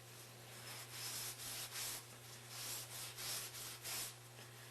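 Abrasive scuff pad scrubbing rust off the inside of a metal pump collar, in quick back-and-forth strokes, about two to three a second.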